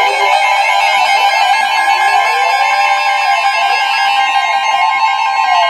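Music with plucked, guitar-like notes and sliding pitches. A steady high tone joins about two-thirds of the way through.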